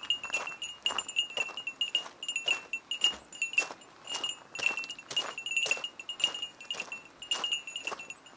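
A small metal bell jingling over and over, about two strikes a second, each strike leaving a short high ringing tone.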